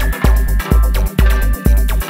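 Electronic dance music with a steady kick-drum beat, about two beats a second, over heavy bass and sustained synth chords.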